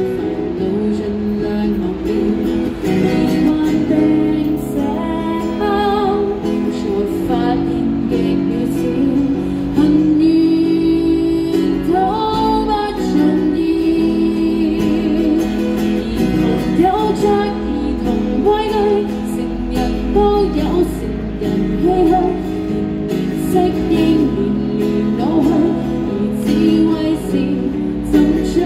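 A woman singing into a microphone while playing an acoustic guitar.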